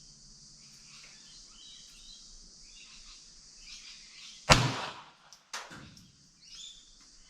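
A single gunshot about four and a half seconds in, a sharp crack that dies away quickly, followed about a second later by a fainter sharp crack.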